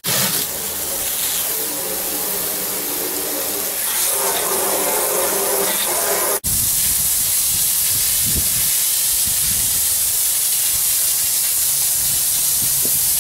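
Garden-hose water spraying from a white PVC wand washer: a steady hiss of spray hitting surfaces, broken by a sudden cut about six seconds in.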